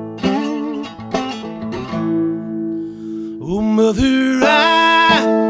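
Acoustic guitar with a capo played in a folk ballad, single plucked notes and chords ringing out; about three and a half seconds in a man's voice comes in singing, sliding up and holding a long note over the guitar.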